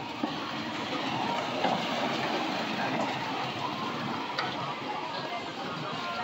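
Steady outdoor street noise with faint voices in the background, and one sharp click about four seconds in.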